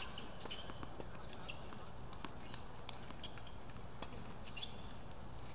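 Scattered light, sharp taps of tennis balls being struck and bouncing on hard courts, with a few faint short squeaks, over a steady low background rumble.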